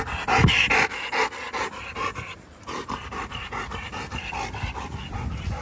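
Black German Shepherd panting hard and fast with its tongue hanging out, about five or six breaths a second, pausing briefly about two and a half seconds in.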